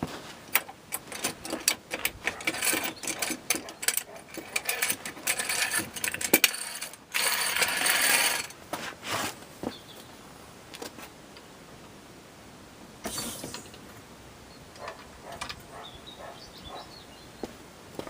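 Rapid mechanical clicking and clattering from a car jack being worked to take the car off its axle stand, with a short loud rush of noise about seven seconds in, after which only a few scattered clicks remain.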